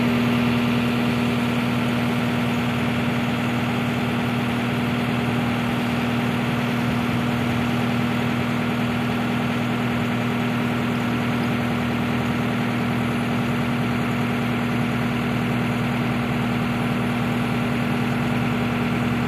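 A heavy diesel engine idling steadily: an even, constant drone with no revving.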